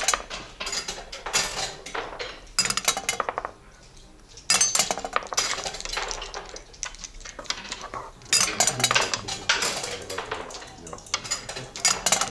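Dice rattling in a cupped hand and thrown onto a backgammon board, and checkers clacking as they are moved: several quick clattering runs of clicks with short pauses between.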